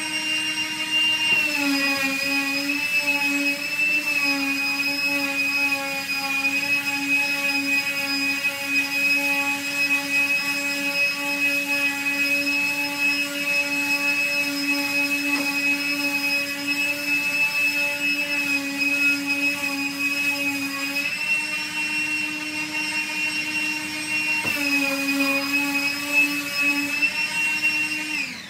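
Bauer 20-volt cordless random orbital sander with a 100-grit pad running on plywood: a steady, loud motor hum. Its pitch drops about a second in, rises again about twenty seconds in, and dips and rises once more a few seconds later. It is switched off just before the end, the pitch falling away.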